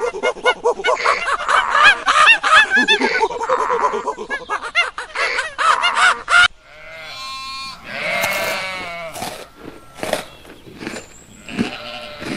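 Sheep bleating: many overlapping calls from a flock at first, then after an abrupt cut about six and a half seconds in, a few separate, longer single bleats.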